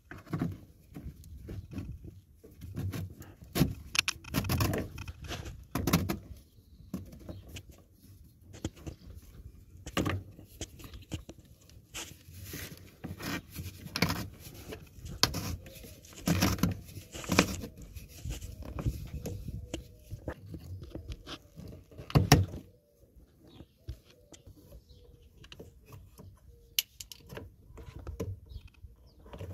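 Hands handling a car's in-line fuel filter and its plastic quick-connect fuel line fittings: irregular clicks, knocks and scrapes, with one sharp knock about three-quarters of the way through.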